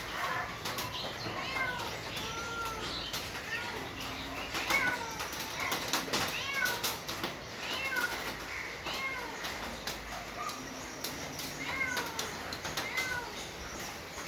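Kittens meowing over and over, short high-pitched mews that come about one or two a second and sometimes overlap, with a brief pause about two-thirds of the way through.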